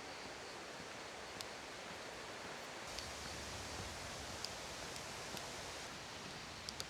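Steady outdoor rushing noise with a few faint ticks.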